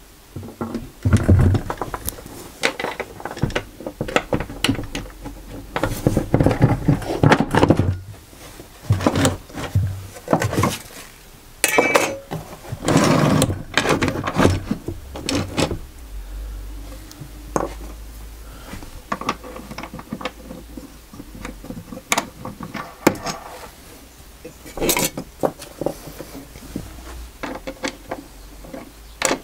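Wooden workpieces and hand tools knocked, slid and set down on a workbench: irregular knocks and clatter, densest in the first half. A steady low hum comes in about halfway through.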